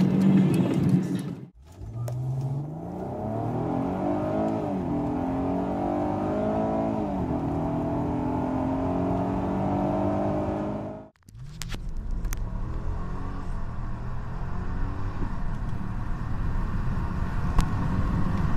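Mercedes CLS W219 engines under full-throttle acceleration from a standstill, heard from inside the car. The first is a CLS 350 CGI's 3.5-litre direct-injection V6, its note climbing and dropping back at each upshift. After a sudden cut, a CLS 500's 5.0-litre V8 pulls hard with a steadier, rougher note.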